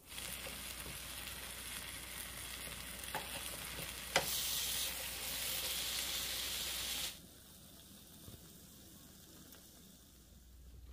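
Glutinous-rice cake batter sizzling in oil in a nonstick multi-well frying pan. A single click about four seconds in, after which the sizzle grows louder, and it cuts off suddenly about seven seconds in, leaving only a faint hiss.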